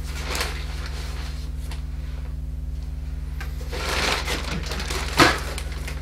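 Dry paper pulp rustling as handfuls are dropped into a stainless steel bowl, loudest around four seconds in, with a sharp knock just after five seconds. A steady low electrical hum runs underneath.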